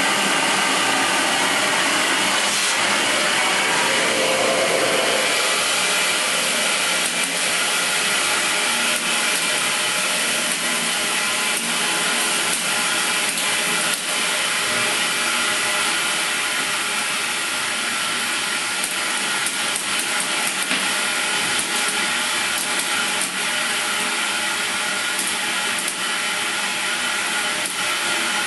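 EXAIR Heavy Duty Dry Vac, a compressed-air-powered industrial vacuum running at 80 psi, giving a loud, steady rush of air as it sucks up spent aluminum oxide blasting media, with faint ticks of grit through the hose.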